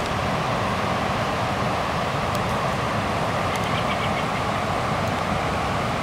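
Fast mountain river rushing over rocks: a steady, even rushing noise of white water.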